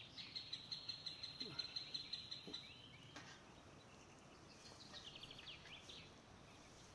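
Faint high bird chirping in the background: a rapid trill of quick chirps for the first two seconds or so, then another short run of falling chirps about five seconds in.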